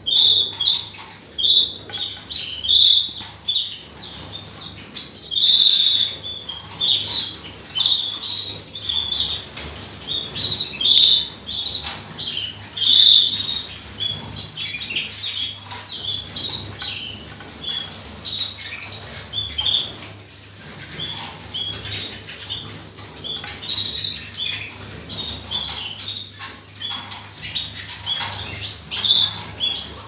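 A flock of domestic canaries flying loose, giving a busy, irregular stream of short high chirps and calls over the flutter of wings.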